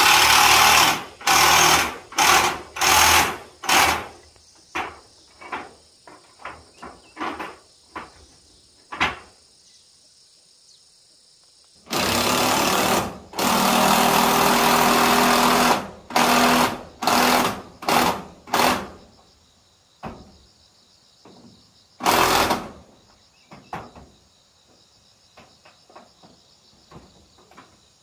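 Handheld power drill driving screws into corrugated metal roofing sheets, running in repeated bursts of about a second, with one longer run of about three seconds in the middle. Insects chirr steadily underneath.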